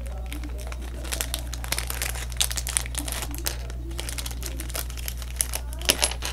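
Close-up crinkling, rustling and irregular clicking as LEGO spinner pieces and their packaging are handled right at the microphone, over a steady low hum.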